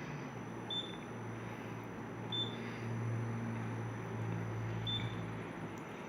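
A steady low electric hum, swelling from about a second in until near the end, with three short high beeps over it.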